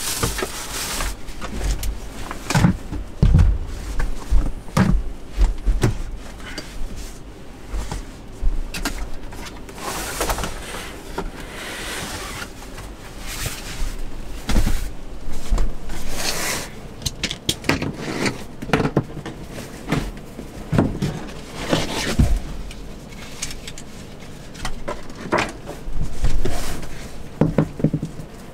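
Irregular knocks, clicks and rustles of things being handled, some with low thumps.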